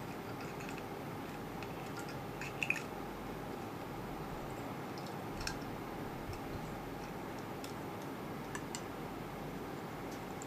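Small clicks and taps from fingers handling a plastic inkjet printhead, with two sharp clicks close together about two and a half seconds in and a few fainter ones later, over a steady low hiss.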